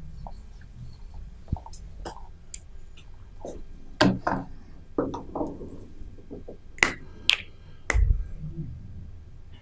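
Handling noise close to the microphone: scattered small clicks and taps, with a few sharper knocks about four seconds in and again near the end.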